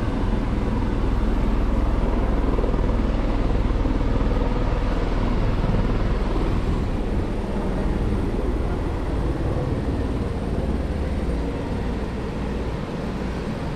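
Helicopter engine and rotor running, a steady heavy rumble that eases slightly over the last few seconds.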